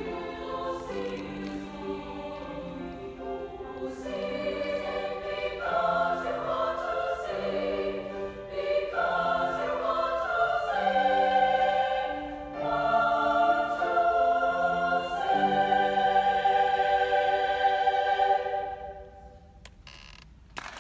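Women's choir singing in sustained chords, ending on a long held final chord that fades out near the end.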